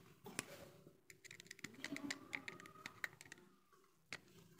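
Faint, irregular small clicks of pliers and small metal nuts and bolts against a plastic extension-board switch plate, as the nuts are tightened.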